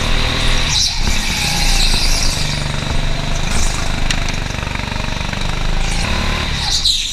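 Go-kart engine running hard, heard from on board the kart, its note rising and falling as the kart speeds through the corners.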